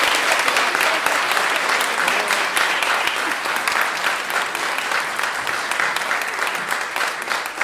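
Audience applauding: dense, steady clapping that tapers a little near the end.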